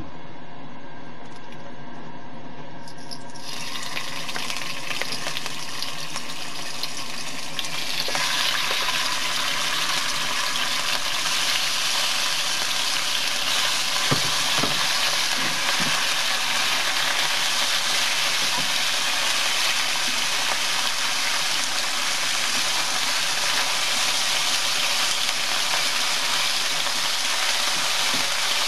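Marinated sliced pork sizzling in a hot frying pan: the sizzle starts about four seconds in over a steady hum, grows louder a few seconds later and runs steadily as the meat is stirred with tongs, with an occasional light tap of the tongs on the pan.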